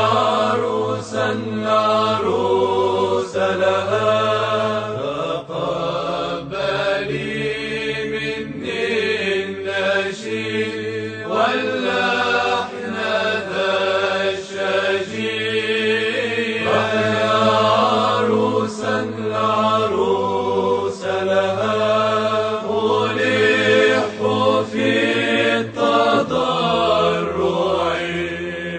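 Chanted singing over a held low drone note that changes pitch only now and then, while the melody moves above it.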